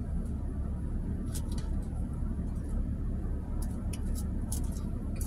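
Steady low rumble in a minivan's cabin, with a few faint clicks and rustles of a plastic fork picking through salad in a plastic container.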